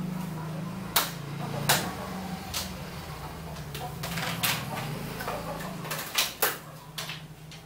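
Hard plastic toy kitchen-set pieces clacking as they are lifted out of a plastic basket and set down on a tiled floor: a handful of sharp, irregularly spaced clacks, the loudest about one and two seconds in.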